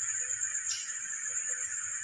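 A steady high-pitched drone with a second, lower steady hum beneath it, and a few faint short tones.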